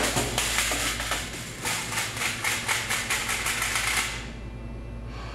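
Rapid, irregular clicking and rattling over a rustling noise, which stops abruptly about four seconds in; faint steady musical tones remain near the end.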